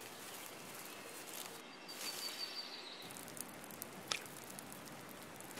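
Faint forest ambience with a soft even hiss, a brief run of high bird-like chirps about two seconds in, and a single sharp click a little after four seconds.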